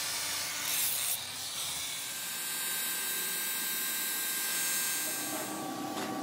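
Angle grinder with an abrasive disc grinding and polishing the steel piston rod of an excavator hydraulic cylinder: a steady hissing grind, louder for a moment about a second in.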